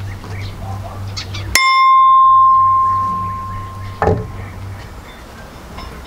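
A single bright bell-like ding, a pure ringing tone that starts with a click, swells and fades over about two seconds, then cuts off with another click. The background hum vanishes while it sounds, as for a sound effect dubbed over the footage.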